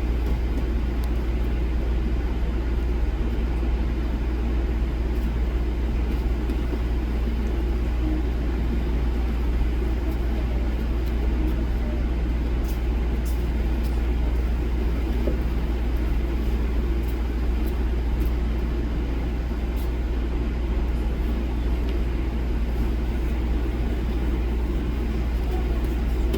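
A steady, unchanging low hum with a faint noise haze above it, and a few faint ticks about halfway through.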